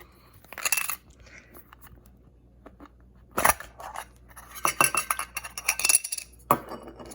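Hands unpacking a Pokémon card Poké Ball tin: packaging crinkling and rustling, with small clicks and light metallic clinks in several short bursts, the busiest about two thirds of the way through.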